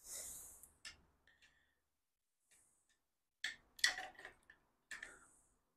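Metal parts of a motorcycle jack being handled and slid together during assembly: a few faint scrapes and scattered light clicks, with a short cluster of sharper clicks about three and a half to four seconds in.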